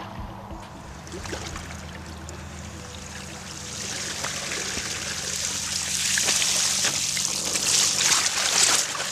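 Lake water streaming and dripping out of a wet carp weigh sling as it is lifted clear, getting louder through the second half.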